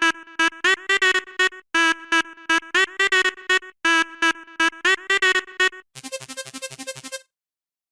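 Synthesizer smartphone ringtones. A short bright synth melody over a held low note plays three times in a row with brief gaps. About six seconds in, a different tone starts: a fast pulsing electronic pattern that stops about a second later.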